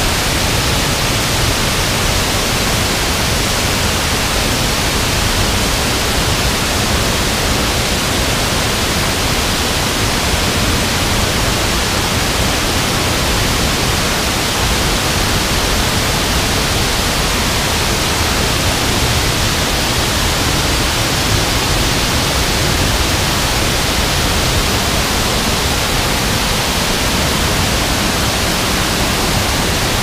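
Waterfall: a steady, loud rush of heavy water falling onto rock and into a swollen river.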